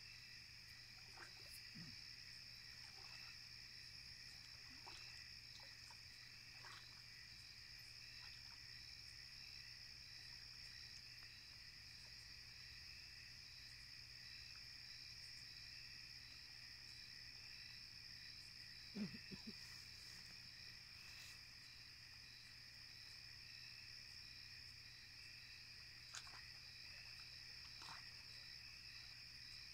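Faint, steady night chorus of insects, a continuous high trill at two pitches. About two-thirds of the way through come a few short low thuds, and near the end a couple of faint clicks.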